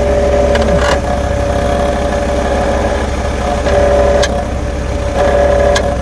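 Car engine idling in Drive against the brake, with a few sharp metallic knocks from a loose heat shield on the catalytic converter, the source of the exhaust rattle at idle.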